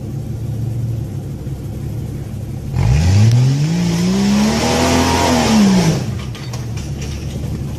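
Off-road SUV engine idling low, then revved hard for about three seconds under load on a steep rock climb, its pitch rising and then falling, with a rush of noise over it. It then drops back to a low rumble.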